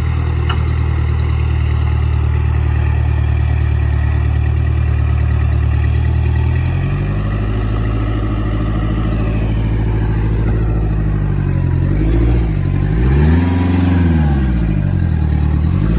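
Suzuki Samurai engine running steadily under load, its pitch stepping up about seven seconds in. In the last few seconds the revs swing up and down several times as it works its way out of a soft bog.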